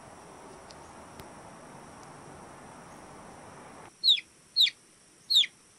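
Steady low room hiss with a faint high whine, then near the end three short, high chick peeps, each sliding sharply down in pitch: a cartoon chick sound effect.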